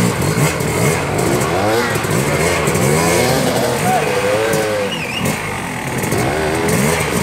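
Dirt bike engines revving in repeated short throttle blips, pitch rising and falling about once a second, as the bikes are worked up a rocky ledge with little grip.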